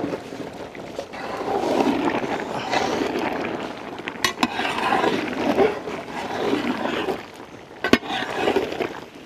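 A metal ladle stirring sliced mushrooms into thick chicken masala gravy in a large metal pot, in repeated strokes about once a second. There is a sharp knock of metal on metal about four seconds in and another near the end.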